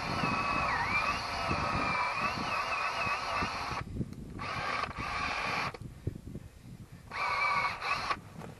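Cordless drill boring a tap hole into a maple trunk: the motor whine wavers and dips in pitch under load for about four seconds, then stops and starts, with one more short steady run near the end.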